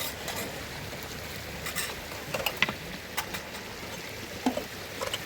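Steady hiss of rain falling, with several short sharp taps and knocks scattered through the middle.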